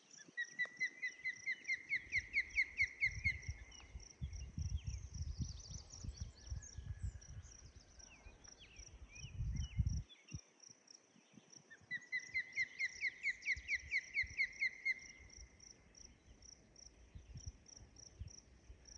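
Osprey calling: two runs of sharp whistled chirps, about four a second, each building over roughly three seconds. The first run comes at the start and the second about twelve seconds in. A steady high pulsing insect trill runs underneath.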